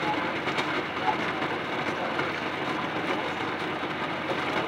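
Pot of water at a full boil on the stove with eggs hard-boiling in it: a steady bubbling noise with a few faint ticks.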